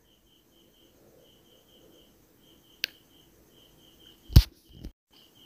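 Wooden spatula stirring thick, wet semolina halwa in a nonstick pan, faintly, with a knock about four and a half seconds in and a smaller one just after. A faint high chirping repeats in short, even pulses throughout.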